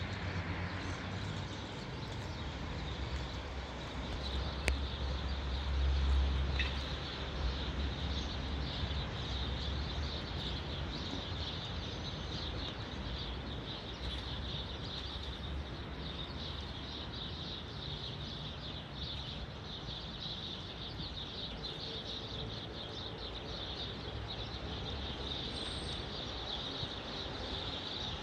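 Outdoor ambience dominated by a steady chorus of small birds chirping, with a low rumble that swells for a few seconds about five seconds in.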